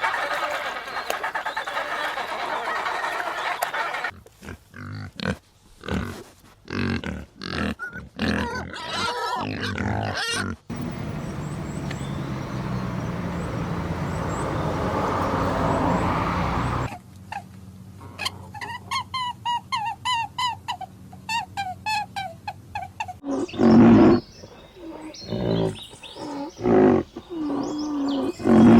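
A series of different farm animal calls, changing every few seconds. A run of short repeated high calls comes in the middle, and loud low calls near the end.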